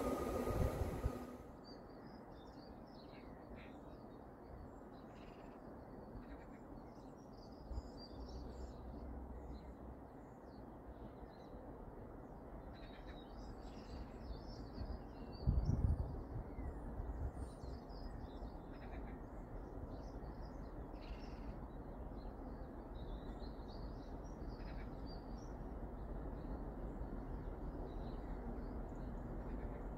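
Birds chirping and calling over a steady low outdoor rumble, with one brief low thump about halfway through and the rumble slowly growing louder near the end. In the first second, the loud noise of a passing train cuts off suddenly.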